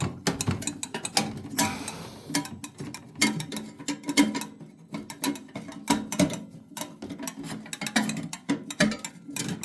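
Phillips screwdriver working screws out of a microwave's sheet-metal casing: irregular clicking with small metallic knocks and rattles.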